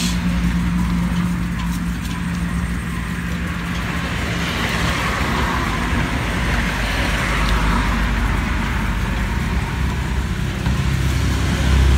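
Roadside traffic noise: a steady low engine hum, with a passing vehicle's hiss swelling and fading through the middle.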